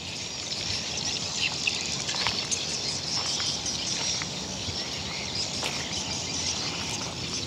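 Outdoor ambience: a steady high hiss of insects, with scattered faint clicks.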